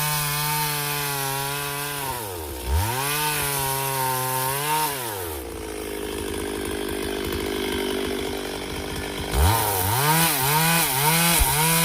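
Two-stroke chainsaw running at high revs, its engine note dipping and rising again twice. For about four seconds it gives way to a rougher, lower sound. Near the end the throttle is blipped quickly, about two revs a second.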